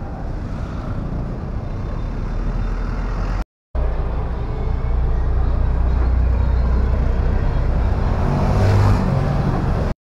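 Steady low rumble of vehicle engines and traffic, with one vehicle louder about eight and a half seconds in. The sound drops out briefly once, about three and a half seconds in.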